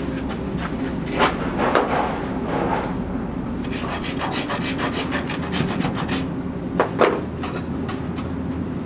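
Farrier's tools scraping and rasping at a horse's hoof in irregular strokes, with a few sharper scrapes about a second in and again near seven seconds, over a steady low hum.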